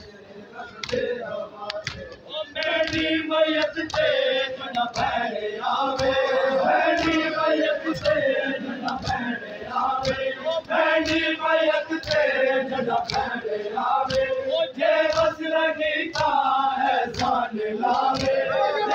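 Crowd of Shia mourners chanting a noha in unison, many male voices, over regular sharp slaps of matam (chest-beating). It is quieter for the first couple of seconds, then swells to full volume.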